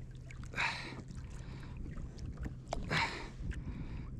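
Sea water sloshing against a kayak hull, with two louder washes, one just over half a second in and one about three seconds in, over small knocks and clicks.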